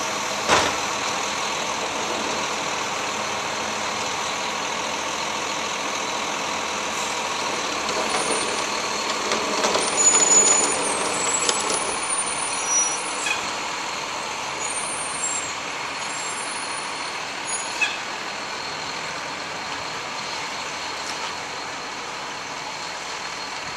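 Rear-loading garbage truck's engine running steadily, with a sharp knock about half a second in as a cart is tipped into the hopper, a busier stretch of clanking midway, and a single sharp clank near the end.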